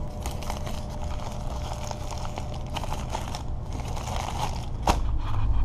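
Paper food wrapper crinkling and rustling as it is handled and opened, with a single sharp click near the end. A low steady rumble comes in just before the end.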